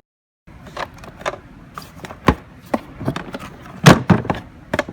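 Irregular clicks and knocks from a Kärcher wet-and-dry vacuum cleaner being handled and opened up, its parts unlatched and moved, with the motor off. The knocks start about half a second in, some ten of them in four seconds.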